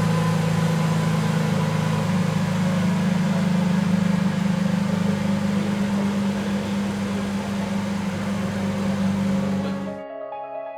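Lamborghini Countach LPI 800-4's V12 engine idling steadily. It cuts off abruptly about ten seconds in, and piano music starts near the end.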